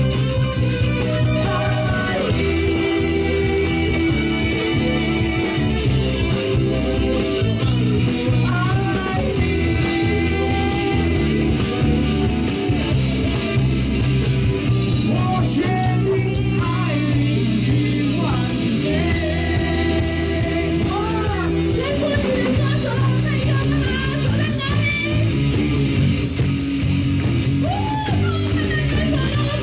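Live rock band playing amplified music, with electric guitar over a steady drum beat and some singing.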